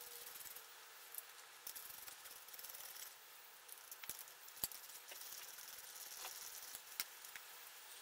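Faint, scattered metallic clicks and rattles of a hand socket tool undoing the 10 mm bolts on top of a small outboard's impeller housing, the loosened steel bolts clinking, over a steady hiss.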